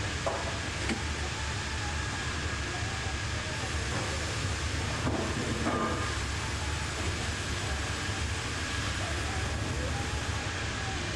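AKE sawmill bandsaw line machinery running steadily, a low hum under an even noise with a thin steady whine, and a few light knocks around the middle.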